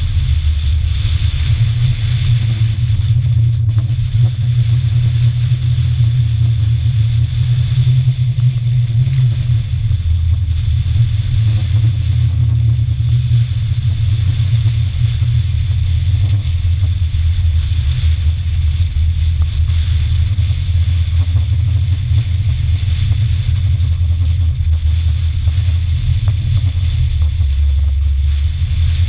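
Strong wind buffeting the microphone in a loud, steady low rumble. The faint hiss of the sea rushing past the hull of a large sailing yacht running before a 30-knot wind sits above it.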